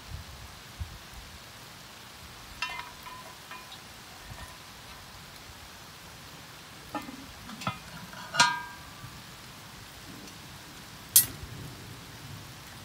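Hand-forged iron tools clinking with a short ring, as a lid lifter hooks and carries a cast iron Dutch oven lid, then the lid set down on the cast iron pot with one sharp clank about 11 seconds in, the loudest sound.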